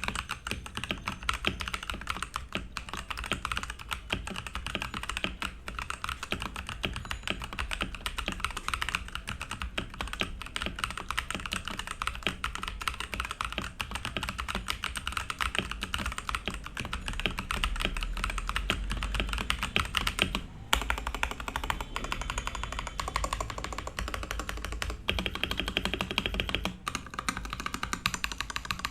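Fast, continuous typing on a Ganss GS3087T Li mechanical keyboard, a dense run of key clicks and clacks. It breaks off briefly about two-thirds of the way through, then carries on.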